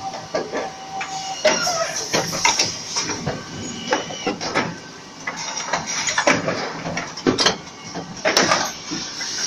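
Automated floor-spring assembly line machinery running: irregular clicks, knocks and clatter from the stations and fixtures over a steady machine hum, with a thin steady tone that stops about a second and a half in.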